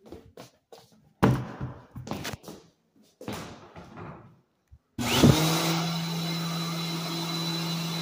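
A few thumps and hurried scuffing steps, then about five seconds in an Electric-Aire hand dryer switches on with a sudden blast. It runs with a steady motor hum and a high whine, then shuts off and winds down at the very end.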